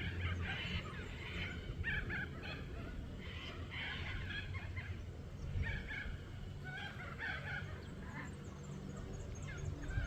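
Birds calling in short, repeated chirping calls, over a low steady rumble.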